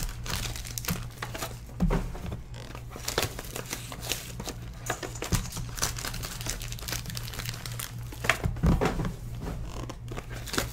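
Foil-wrapped trading card packs crinkling and a cardboard card box being handled, in irregular rustles and small taps.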